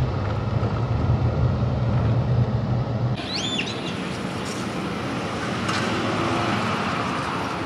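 Low, steady road and engine rumble inside a moving car's cabin. About three seconds in it cuts to open-air street ambience, with a bird's brief high chirp just after the cut.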